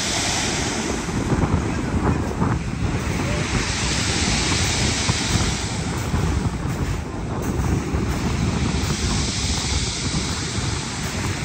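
Sea waves breaking and washing ashore, surging about three times, with wind buffeting the microphone in a heavy low rumble.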